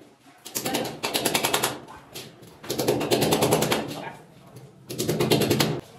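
Hammer rapidly striking nails into a concrete wall, in three bursts of quick blows with short pauses between.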